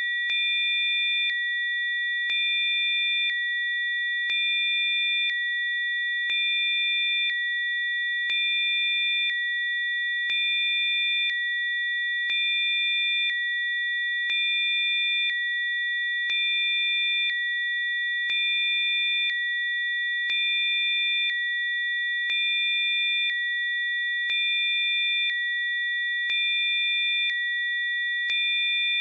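Electronically generated sine tones: several high, steady pitches held together, with fainter tones switching on and off in a regular cycle about every two seconds, so the sound pulses slightly.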